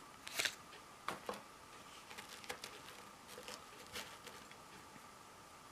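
Metal lock picks being handled and set down: a scattering of light clicks and taps, about six over a few seconds, with a faint steady whine underneath.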